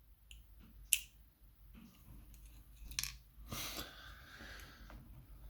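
Small metal parts of a TSS euro cylinder lock clicking as the last pin stack is removed: a sharp click about a second in, another about three seconds in, then a short scraping rattle.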